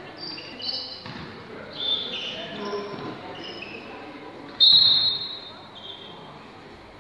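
Basketball game on a hardwood gym floor: sneakers squeaking, a ball bouncing and players' voices, with a loud short whistle blast a little over halfway through.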